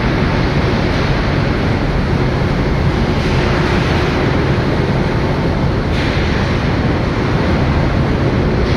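Loud, steady noise of a large container ship's engine room with its machinery running: a wide, even rush with a low hum and a faint steady tone underneath.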